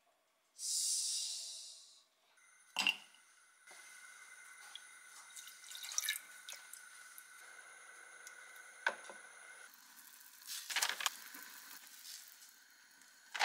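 Packaged beef bone broth pouring from a pouch into a clay pot in a steady trickle, with a few small splashes near the end as rice cakes are dropped into the broth by hand. A short hiss and a sharp knock come just before the pouring.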